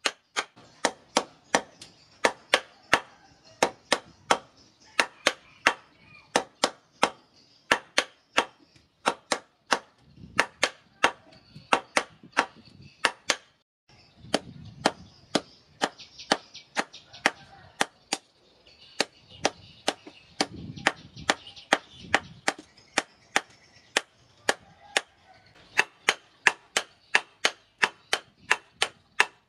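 Hand hammer striking a red-hot katana blade on a steel anvil post, sharp ringing blows at a steady pace of about three a second, with a brief pause about halfway through.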